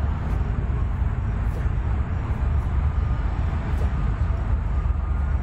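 Steady low outdoor rumble, strongest in the bass, with no distinct events.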